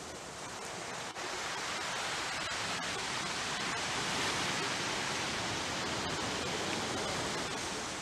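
Sea surf breaking and washing up a sand-and-rock beach, a steady rushing noise that swells through the middle as a wave runs in. The sea is rough under a high-wave advisory.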